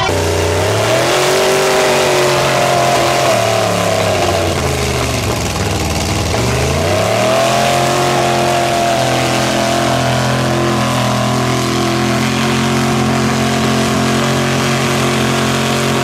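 Lifted mud trucks' engines running at high revs while pulling against each other in a truck tug-of-war. The revs climb at first, sag about four seconds in, then climb again and hold high and steady.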